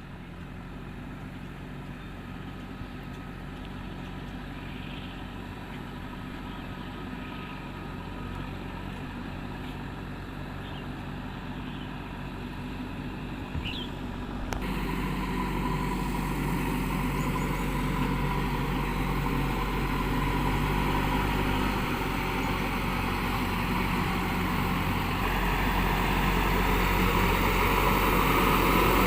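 Diesel engine of a heavy road-construction machine running steadily, growing louder across the clip. There is a sudden jump in level about halfway through.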